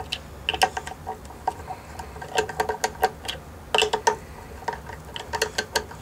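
Quarter-inch nut driver clicking against the metal screws of a horn driver's cover as they are loosened one by one: irregular sharp clicks, some in quick runs.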